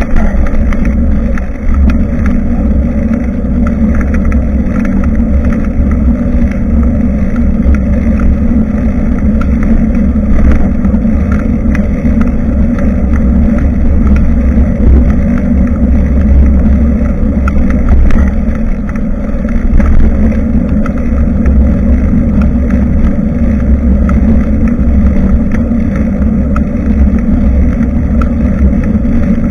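Steady, loud wind rumble on the microphone of a bicycle-mounted camera while riding, with road and tyre noise and scattered small clicks and rattles.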